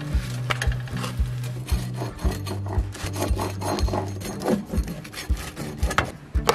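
Background music with a steady beat and bass line, over the rasping scrape of a pizza-cutter wheel rolling through quesadillas on a metal pan.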